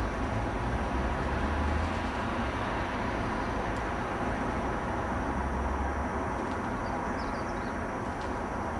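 Freight train rolling past: loaded steel-coil wagons running over the rails with a steady rumble.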